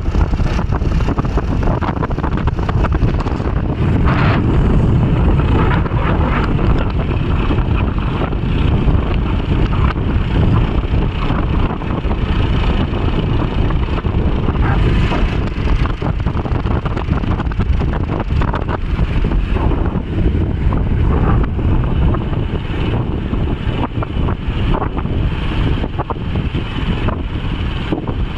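Steady rumble of wind on the microphone mixed with vehicle noise, as from a moving camera.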